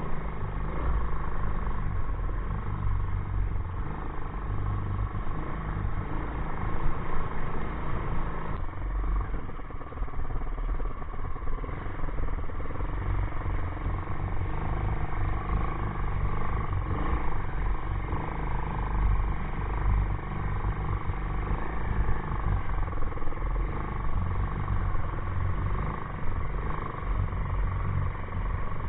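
ATV engine running steadily as the quad is ridden along, with a dense, continuous low rumble.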